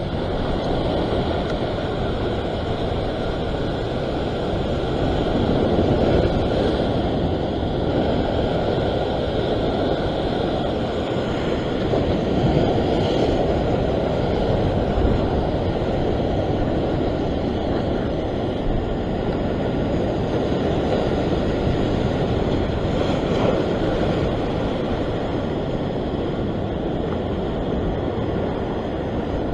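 Ocean surf washing and foaming over a rock ledge in a steady rush, with wind buffeting the microphone.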